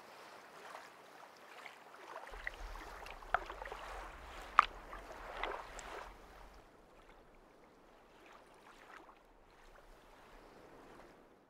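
Faint sea water lapping and sloshing at the surface, with a few small sharp splashes in the first half over a low rumble. It fades lower in the second half.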